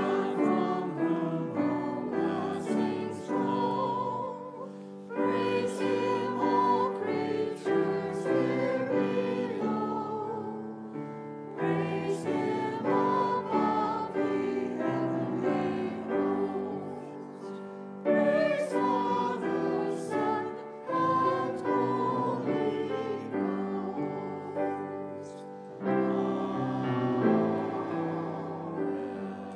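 A congregation singing a hymn with piano accompaniment, in phrases of a few seconds each.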